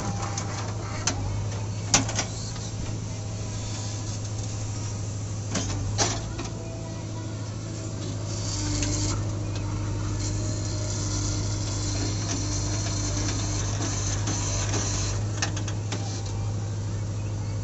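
JCB backhoe loader's diesel engine running steadily under hydraulic load, heard from the cab, as the arm dumps soil and digs. A few sharp metallic clanks from the boom and bucket stand out, the loudest about two seconds in.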